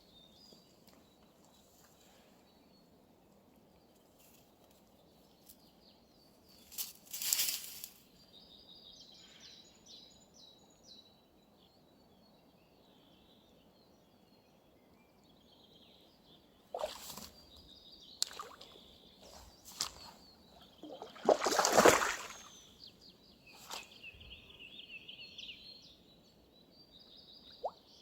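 Small songbirds singing repeated trills over a faint steady outdoor background, broken by a few short, loud noises, the biggest about seven and twenty-two seconds in.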